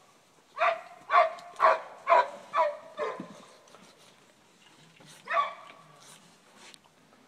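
A dog barking: a run of six barks about half a second apart starting just over half a second in, then one more bark about five seconds in.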